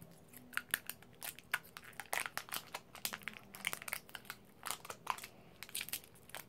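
Plastic shrink-wrap on a toy cup crinkling and crackling in quick, irregular snaps as it is picked at and torn away by hand.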